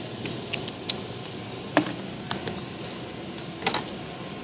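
Scattered light clicks and knocks from a wire shopping cart being handled, over a steady background hum.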